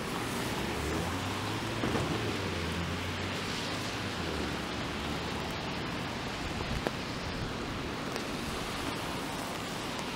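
Rain falling on an umbrella overhead and on the wet street, a steady hiss, with a low rumble through the first few seconds.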